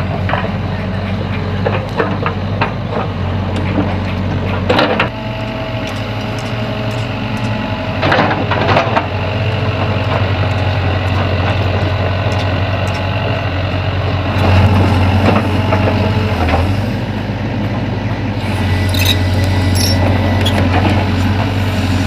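Sany excavator's diesel engine running steadily, with several sharp knocks and clanks from the machine at work. The engine grows louder for a couple of seconds about two-thirds of the way through.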